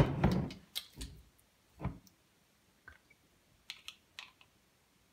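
Handling noise from a plastic soy sauce bottle and measuring spoons: a sharp knock at the start, the loudest sound, then scattered light clicks and taps.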